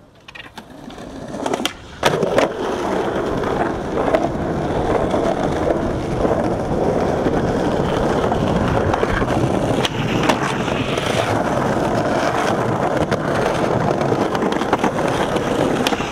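Skateboard wheels rolling over rough concrete, a steady loud rumble that sets in after a couple of clicks about two seconds in. Near the end comes a sharp snap as the board's tail pops for a trick.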